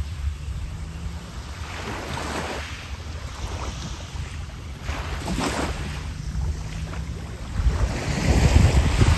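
Sea waves washing onto the beach in surges every two to three seconds, with wind rumbling on the microphone; it is loudest near the end.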